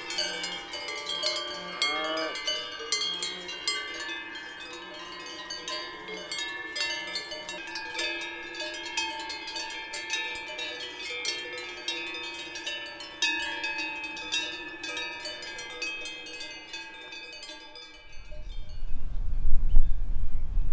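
Livestock bells (cowbells) clanking and ringing at many different pitches, as a grazing herd moves. About eighteen seconds in, the bells fade and a loud low rumble takes over.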